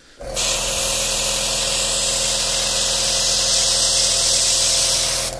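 Airbrush spraying paint onto model railway rails: a steady hiss of air that starts suddenly just after the start and cuts off near the end, over the steady hum of a small hobby air compressor running.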